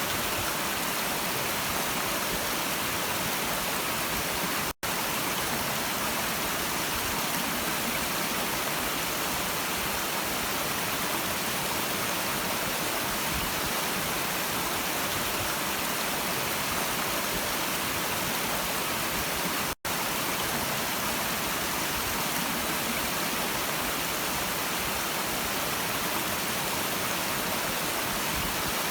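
Stream water rushing in a steady, even hiss, cut off for an instant twice.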